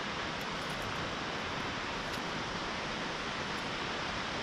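Steady rushing hiss of Grand Falls, a muddy waterfall on the Little Colorado River, heard from the rim.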